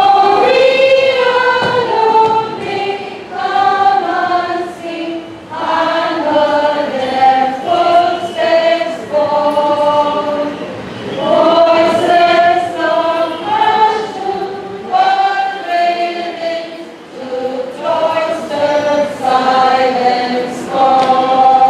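Women's choir singing in held notes, phrase by phrase, with short dips between phrases.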